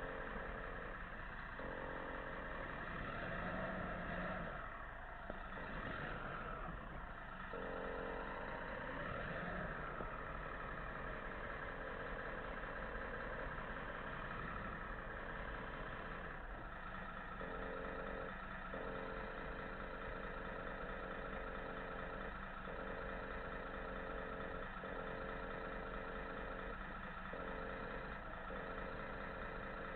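Remote-control model truck running, heard from on board: a steady engine-like hum with a few brief dips, shifting in pitch during the first ten seconds.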